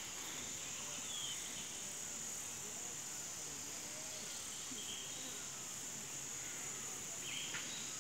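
A steady, high-pitched chorus of insects, unbroken, with a few faint short chirps over it.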